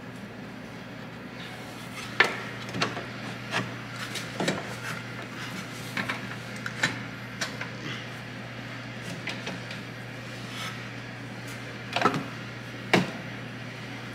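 Irregular metallic clicks and knocks of hand tools being worked on a car's rear suspension and hub, over a steady low hum. The sharpest knock comes about two seconds in, and two more come near the end.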